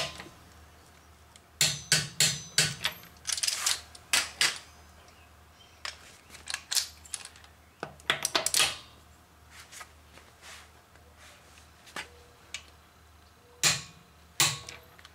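Click-type torque wrench working a wheel lug nut: groups of sharp metallic clicks from the ratchet head and the wrench breaking over at its set torque, the sign that the nut has reached 100 foot-pounds. The clicks come in several short bunches with quiet pauses between.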